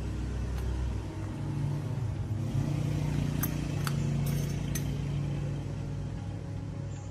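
A motor running with a steady low hum that swells and then fades. A few sharp clicks come about halfway through.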